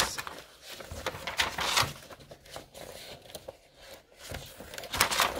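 Pages of a picture book being turned and handled: paper rustling and flapping in several short rustles, the loudest near the end.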